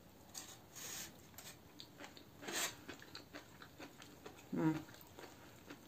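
A person chewing a mouthful of chuka seaweed salad with cucumber: faint wet mouth sounds and soft clicks, with a brief 'mm' from the voice about four and a half seconds in.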